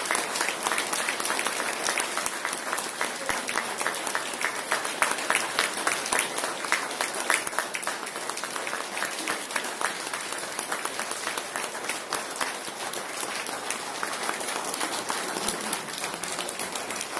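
Audience applauding, many hands clapping in a dense, continuous patter that eases slightly in loudness.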